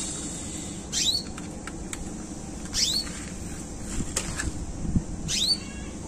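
Domestic canary giving three short, high, falling call notes about two seconds apart, not yet in song: a newly bought bird still settling into its cage. Light clicks of feed cups being fitted onto the cage bars come between the calls.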